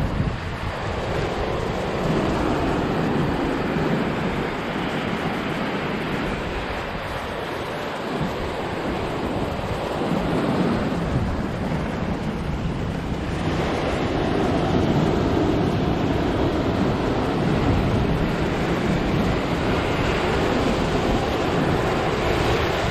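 Ocean surf breaking and washing over a rocky shoreline in a steady rush, swelling louder a little past halfway, with wind on the microphone.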